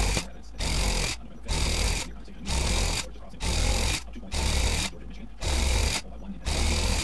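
Handheld electric tufting gun punching yarn into rug backing cloth. It runs in short bursts, stopping and starting about once a second as the trigger is worked.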